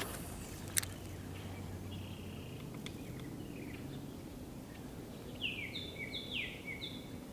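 A fishing rod swishes through a cast, followed by a sharp click about a second in. Near the end a bird calls in a quick string of high chirps.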